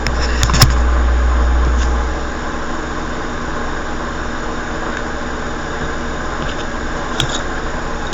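Steady mechanical hum with a deep rumble that drops away about two seconds in, and a few sharp clicks near the start and once more near the end.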